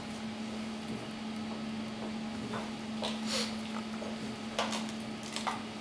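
Small plastic dropper bottles handled in gloved hands: a few short clicks and rustles, about four in the second half, over a steady low hum.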